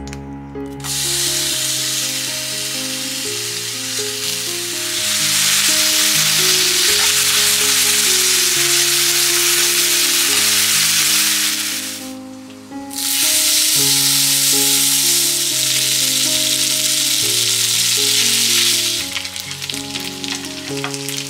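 Onion, bacon and mushrooms sizzling loudly in hot oil in a frying pan on a gas burner, starting suddenly about a second in, dropping out briefly around twelve seconds and thinning to a lighter crackle near the end. Soft background music with a slow melody plays throughout.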